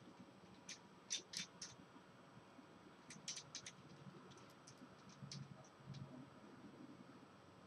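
Faint computer keyboard typing: a quick run of four keystrokes about a second in, a tighter run around three seconds in, then a few scattered taps.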